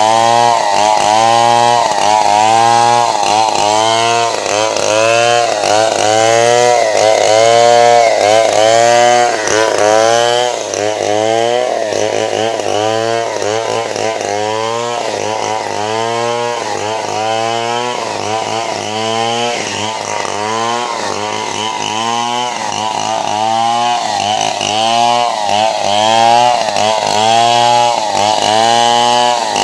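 Two-stroke chainsaw running hard while sawing a log into boards, its engine pitch rising and dipping over and over in a steady rhythm as the chain works through the wood.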